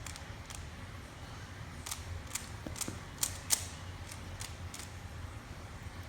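Rubik's Cube being turned quickly by hand: a string of irregular plastic clicks and snaps as the layers rotate, the loudest about three seconds in.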